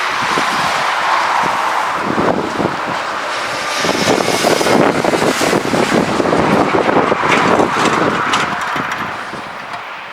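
Jet airliner engines passing close along the runway: a loud, steady rush that swells about four seconds in and fades near the end.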